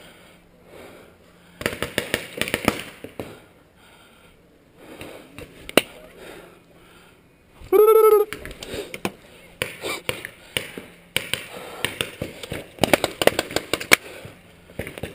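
Paintball fire: rapid cracks of paintball markers and balls smacking against cover, in two bursts, one early on and a longer one in the second half. About halfway through comes a short, loud pitched call lasting about half a second.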